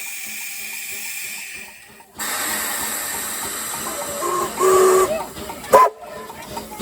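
A USATC S160 2-8-0 steam locomotive hissing steam, the hiss louder after about two seconds. In the second half come a couple of short whistle blasts and then a brief rising toot.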